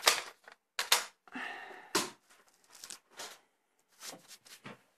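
Cardstock and paper being handled: a string of short rustles and light taps, the sharpest in the first two seconds, then fainter ones.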